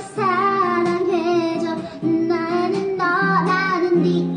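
A woman singing the melody in wordless, made-up syllables instead of the lyrics, in phrases with short breaks between them, over an acoustic guitar playing held chords.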